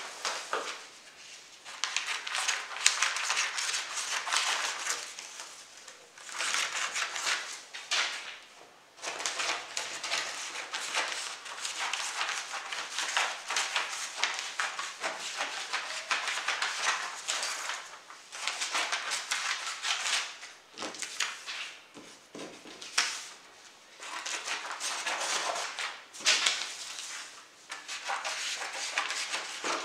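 Sheets of printer paper rustling and crinkling as they are handled and trimmed with scissors, in bursts of a few seconds with short pauses between.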